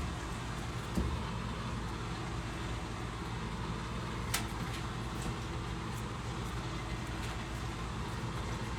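A steady low engine hum, like a motor idling, with a single thump about a second in and a sharp click a few seconds later.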